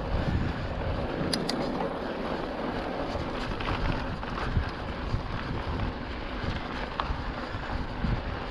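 Wind rushing over the microphone of an on-board camera on a mountain bike being ridden at race pace, a steady rushing noise with low rumble and small rattles from the trail. Two sharp clicks come close together about a second and a half in.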